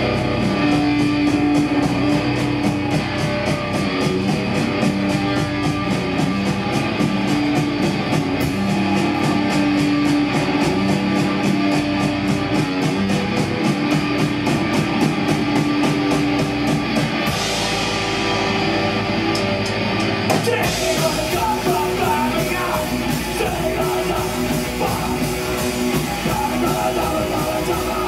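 Live punk rock band playing loud: electric guitars, bass and drum kit, with fast steady cymbal strokes. About two-thirds of the way through, the cymbals drop out for a few seconds before the full band comes back in.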